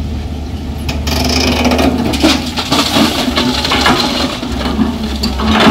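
Excavator bucket tipping a load of soil and stones into a steel tractor trolley: a loose clatter and crunch of rock on metal from about a second in, over the steady hum of running engines.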